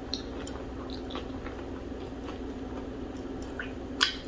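Close-miked eating sounds: soft wet chewing with scattered small mouth clicks and smacks, and one sharper click about four seconds in.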